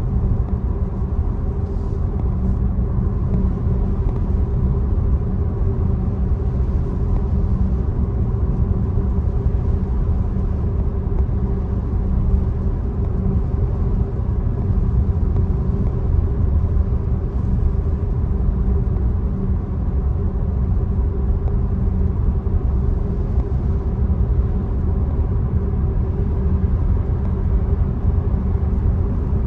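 Tesla driving along the road: a steady low rumble of tyre and road noise with a faint even hum.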